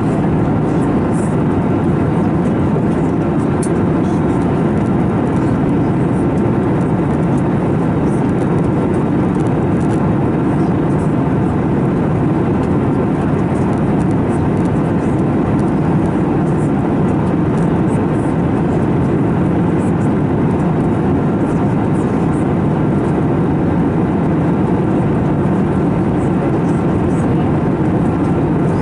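Steady cabin noise of an Airbus A321neo in flight: a constant low rush of airflow and engine noise from its CFM LEAP-1A turbofans, unchanging throughout.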